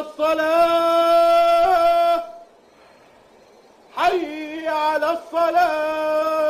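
A man's voice chanting the adhan, the Islamic call to prayer, in long held, ornamented notes. One phrase ends about two seconds in, and after a short pause the next begins about four seconds in.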